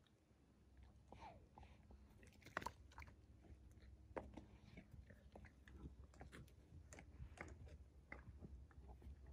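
Central Asian Shepherd puppy gnawing a bone: faint, irregular crunches and clicks of teeth on bone, the sharpest about two and a half seconds in.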